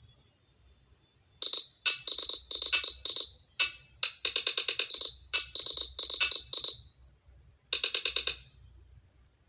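Nothing phone ringtone: a fast, glitchy pattern of sharp high electronic beeps and clicks in short bursts. It starts about a second and a half in, plays in quick groups until about seven seconds, pauses briefly, then gives one more short burst.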